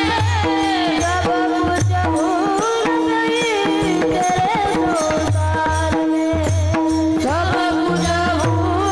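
Indian devotional kirtan singing: a solo voice sings a melody with sliding, ornamented turns over a steady held drone note, with low hand-drum strokes keeping the rhythm.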